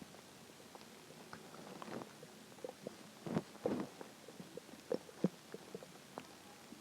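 Hungry stomach growling: irregular short gurgles and pops, with a longer gurgling stretch about halfway through and two sharp pops soon after.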